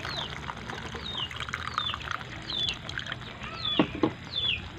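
A little water poured into a hot wok of soy-sauce-and-sardine sauce, the liquid then bubbling gently. A bird calls through it with about six short falling chirps.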